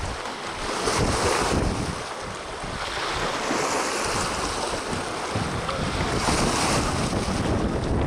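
Wind buffeting the microphone over choppy harbour water lapping against a small fishing boat's hull and the quay wall, swelling and easing in gusts.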